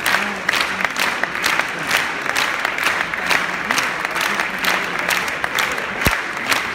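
Theatre audience applauding a curtain call, a dense steady clapping, with the sharp, evenly spaced claps of someone close by standing out.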